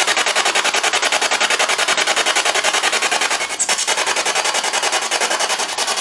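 Spirit box sweeping through radio stations: a rapid, steady chopping of radio static, about ten pulses a second, with a brief break about three and a half seconds in.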